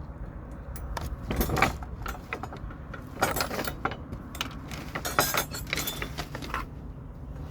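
Small hard objects rattling and clinking in four short bursts over a steady low hum.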